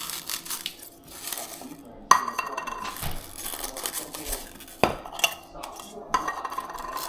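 Small plastic dessert cups being separated from a stack and handled: irregular crinkling and rattling of thin plastic, squeaking as the cups rub apart, and a sharp click about five seconds in.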